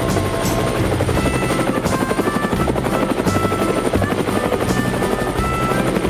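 Helicopter rotor sound effect chopping steadily, with background music underneath.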